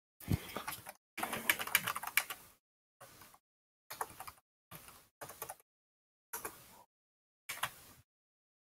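Computer keyboard typing in about eight short bursts of rapid keystrokes, with the longest run a second or so in. Each burst cuts off to silence in the pauses.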